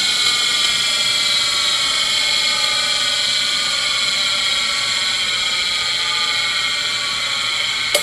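ENCO 6" x 12" bench surface grinder's motor and wheel coasting down after being switched off: a steady whine with several tones slowly falling in pitch. Near the end, a sharp click as the motor's contacts click off.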